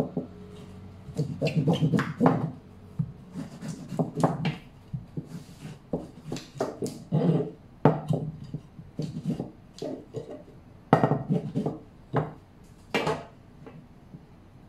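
Rolling pin working a portion of wholemeal bread dough flat on a silicone baking mat: irregular knocks and rubbing as the pin is pushed back and forth, stopping shortly before the end.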